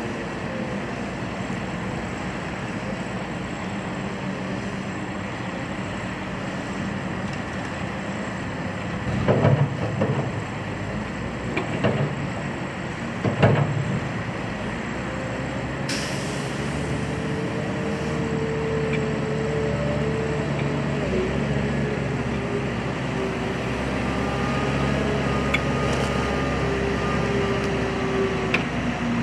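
Komatsu WA320 wheel loader's diesel engine running, with three heavy clattering bangs between about nine and fourteen seconds in as the bucket dumps debris into a steel roll-off dumpster. The engine note rises in the second half as the loader works.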